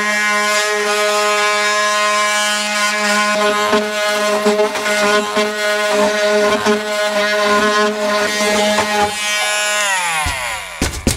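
Electric saw fitted with a curved wood-cutting blade, running at a steady whine and cutting through the camper's wooden wall, with a rattling chatter as the blade bites. Near the end the trigger is released and the motor winds down with a falling pitch, followed by a few knocks.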